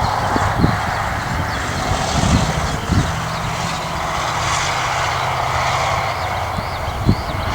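A motor vehicle driving past, with a steady rush of tyre and engine noise as the loudest sound. Eurasian skylark song chirps faintly above it.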